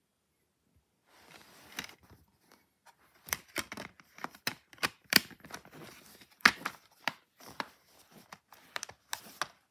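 A multi-disc plastic DVD case being handled and shut: a run of sharp plastic clicks and snaps with rustling between them, starting about a second in.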